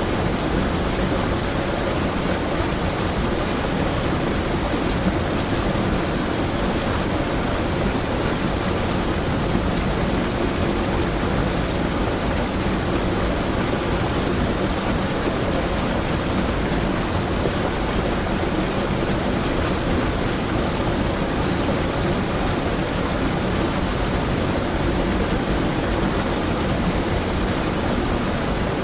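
River water running over a small waterfall: a steady, unbroken rush of falling and flowing water, heaviest in the low end.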